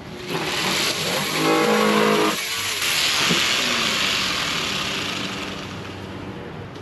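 Corded jigsaw cutting through hardboard, its motor whining, then cutting off sharply a little over two seconds in. A broad rushing noise follows, swelling and then fading away over the next few seconds.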